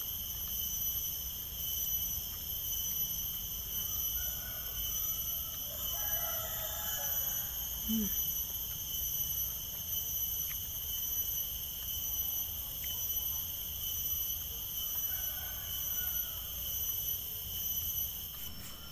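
Steady high-pitched insect chorus, several constant shrill tones held without a break, over a low rumble.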